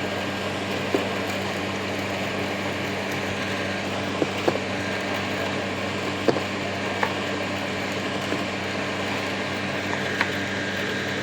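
Room air conditioner running with a steady hum and hiss. About six light clicks come and go on top, eggs knocking as they are handled and set into a box.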